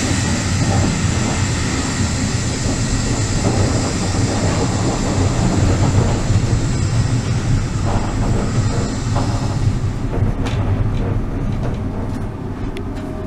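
Older Intercity passenger coach running on the rails, heard in the door vestibule: a steady low rumble with a high hiss that stops about ten seconds in, then a few sharp clicks as the sound eases off toward the end.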